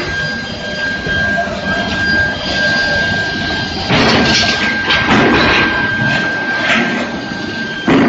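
Induction heating furnace giving a steady high-pitched whine over constant workshop noise. About halfway in, louder rough rushing and clattering noise joins it.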